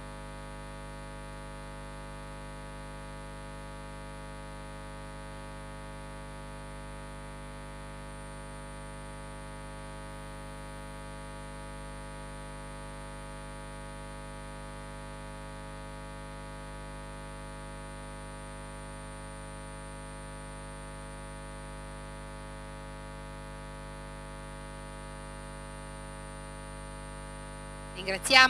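Steady electrical hum and buzz of many constant tones, unchanging throughout, with nothing else standing out over it.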